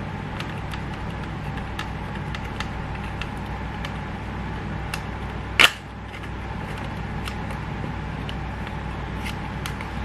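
Small plastic clicks and taps from handling a GoPro Hero 8 waterproof housing, with one loud, sharp snap a little past halfway, over a steady low hum.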